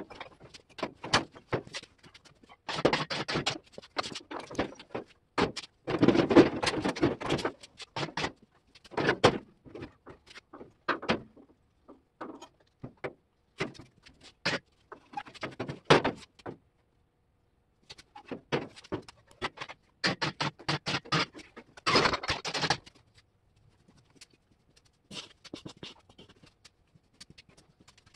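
Irregular metal clanks, knocks and rattles as a Ford Ranger 2.0 engine and transmission, hanging from a hoist chain, are pushed and shifted by hand into a car frame. The sounds come in bursts, with a short quiet gap about two-thirds of the way through.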